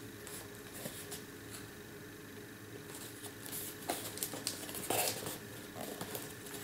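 Hands handling a printed cardboard tablet box: faint taps and rubbing of fingers on the card, then a run of louder scrapes and knocks about halfway through as the box is turned over.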